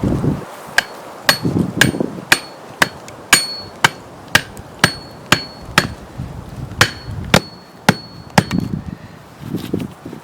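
Repeated sharp hammering blows, about two a second, each with a brief metallic ring. The strikes stop near the end.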